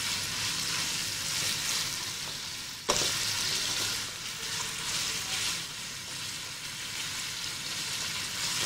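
Cubed chicken sizzling in hot oil in a wok while being stirred with a spatula, fried until the meat changes colour. One sharp knock about three seconds in.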